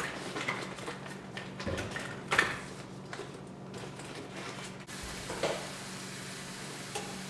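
Cookware clatter: a frying pan, spatula and oil bottle knocking and clinking against the stovetop and counter, the loudest knock about two and a half seconds in. After about five seconds a steady hiss sets in over a low hum.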